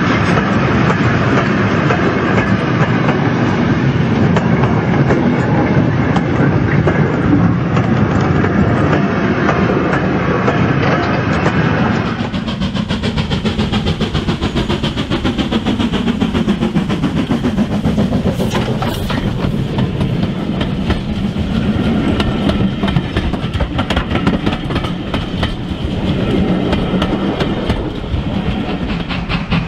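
Model railway trains running, wheels clicking evenly over the rail joints over a steady rumble. About 12 s in the sound changes to a sharper, faster run of clicks as a rake of coaches goes by.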